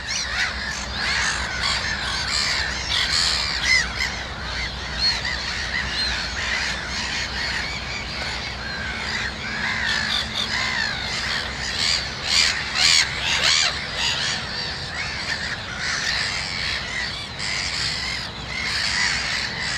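Black-headed gull colony calling: many harsh, overlapping calls throughout, over a low steady hum.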